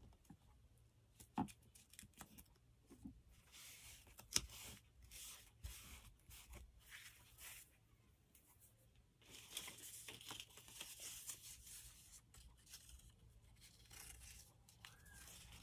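Scrap paper strips being torn and handled: faint tearing and rustling in two spells, about four seconds in and again around ten seconds, with light clicks and taps between.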